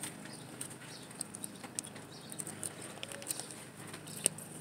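Faint scattered light clicks and taps of small plastic toy food pieces being handled, with one sharper click about four seconds in, over a low steady hum.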